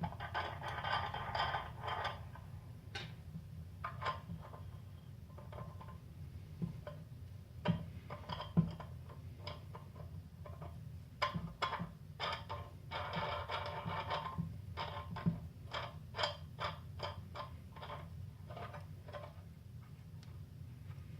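Wing nuts being threaded by hand onto the ends of a metal U-bolt: scattered metal clicks and taps, with two spells of quick rattling, one at the start and one about two-thirds of the way in. A steady low hum runs underneath.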